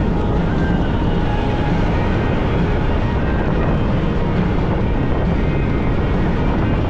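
Can-Am side-by-side driving steadily at speed on a gravel trail: engine drone mixed with tyre noise on the gravel.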